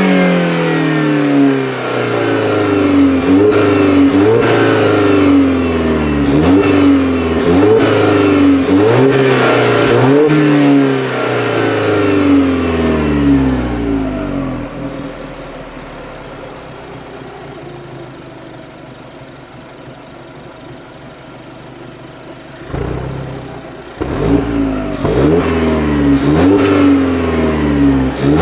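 Alfa Romeo Giulietta Quadrifoglio Verde's 1750 turbocharged four-cylinder engine revved in quick, repeated blips, the pitch jumping up and sinking back each time. About halfway through it falls back to a quiet idle for several seconds. A little over three quarters of the way through the blipping starts again.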